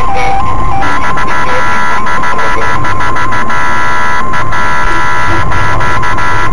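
Police siren holding a steady high tone, briefly dropping to a lower note near the start, over a loud rushing noise.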